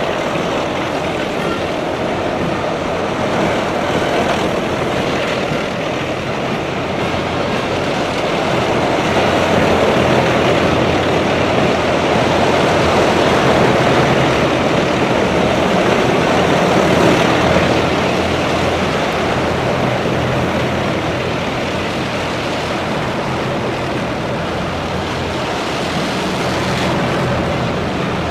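A column of armoured military vehicles, eight-wheeled armoured personnel carriers among them, driving past in formation: a steady, dense drone of many engines with a low hum underneath. It swells somewhat around the middle, then eases.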